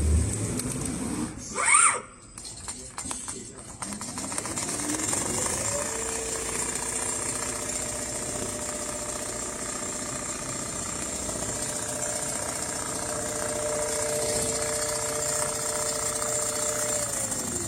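Automatic CNC sewing machine running: its motor whirs up to speed about four seconds in, holds a steady hum with a rapid needle rattle while sewing, and winds down near the end. A brief high squeak comes about two seconds in.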